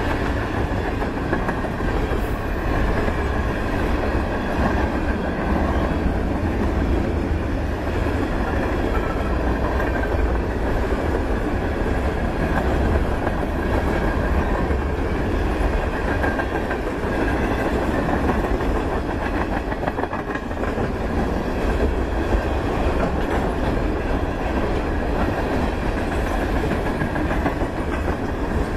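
A freight train of covered grain hopper cars rolling past close by: a steady rumble of steel wheels on rail, with clicking as the wheels pass over rail joints.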